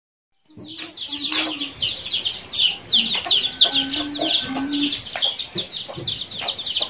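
Dense, continuous high chirping from many small birds or chicks, with a hen's short low clucks in between. The sound starts abruptly about half a second in.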